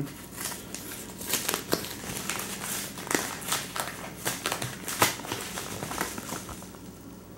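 Packaging being opened by hand: crinkling and rustling with many small crackles, easing off near the end.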